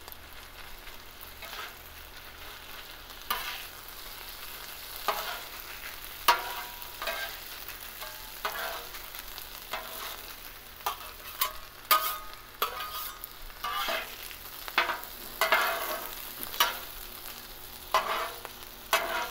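Steel spatulas scraping and tapping irregularly on a flat-top griddle as they turn and chop sliced steak, peppers and onions into melting provolone. Under them, the steady sizzle of the meat frying on the hot steel.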